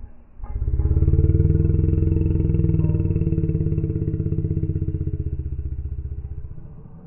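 A long roll of thunder: a deep rumble that swells in about half a second in, is loudest over the next second or two, and slowly fades away over about six seconds.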